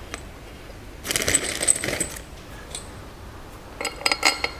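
Steel cylinder head bolts clinking: a jingle of loose bolts about a second in, then a quick run of metallic clinks near the end, as the bolts are handled and dropped into the head's bolt holes by hand.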